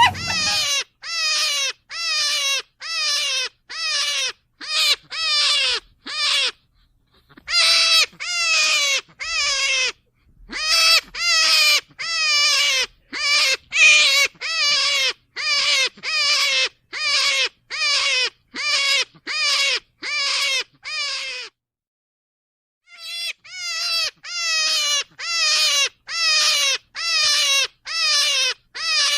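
An animal call repeated a little over once a second, each call short and falling in pitch, with two brief pauses.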